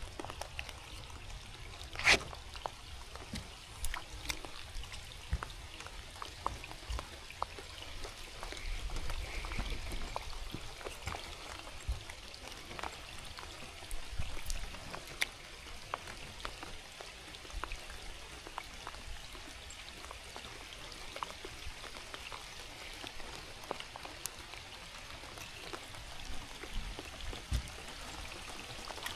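Rain falling, with water trickling and dripping and scattered light taps. There is one sharp knock about two seconds in.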